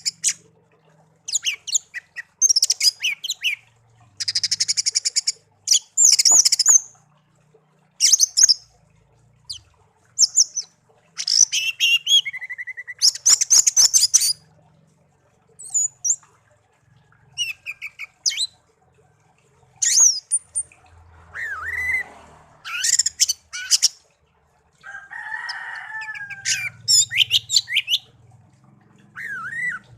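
Pet songbird singing in short, varied phrases of rapid trills and chirps, each lasting a second or so, with brief pauses between them.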